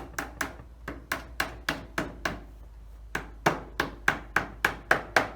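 Hammer tapping an edge of the beehive lid over to a 45-degree bend, with about seventeen sharp strikes at three or four a second and a short pause a little past halfway.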